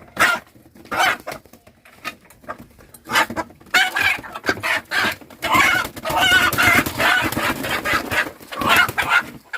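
A desi rooster squawking and clucking in alarm as it is caught and held by hand. The calls are scattered at first, then come thick and loud from about four seconds in until just before the end.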